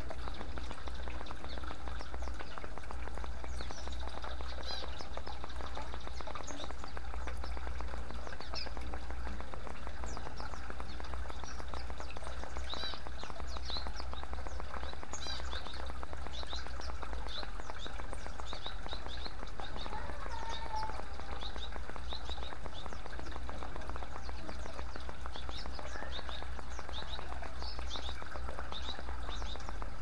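Water trickling and splashing from bamboo fountain spouts into a clay bowl and pool, with small birds chirping in quick, high notes, more busily in the second half. A steady low rumble runs underneath.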